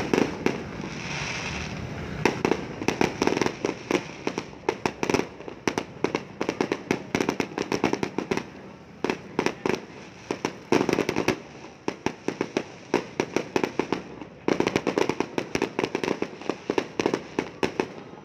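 Fireworks going off in rapid volleys of sharp bangs and crackles, the volleys separated by short lulls.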